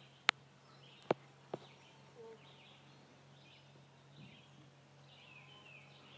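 Birds chirping outdoors, with three sharp clicks in the first second and a half over a faint steady low hum.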